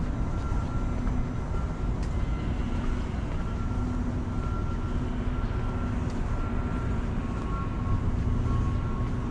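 Steady rumble of street traffic, with a faint repeating electronic beep over it. A second, lower beep joins about seven seconds in.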